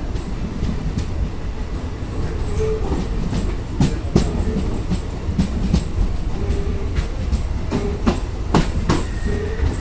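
Moving train running on the rails: a steady low rumble with irregular wheel clicks and knocks over the track. Louder clacks come about four seconds in and again around eight to nine seconds.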